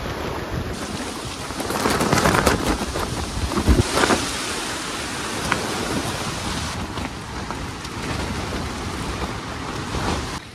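Strong wind gusting over the microphone, with sharp buffeting in the loudest gusts about two to four seconds in.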